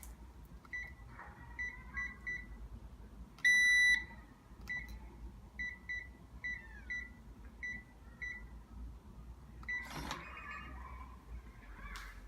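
Short electronic beeps from a keypad being pressed, one pitch each and in quick runs, with one longer, louder beep about three and a half seconds in. A brief clunk near ten seconds.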